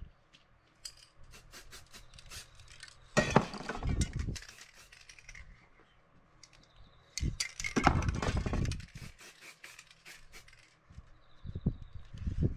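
Aerosol spray paint can hissing in two bursts of about a second or two, about three seconds in and again about seven seconds in, spraying through a metal stencil. Light metallic clicks and clinks from the stencil being handled fall between the bursts.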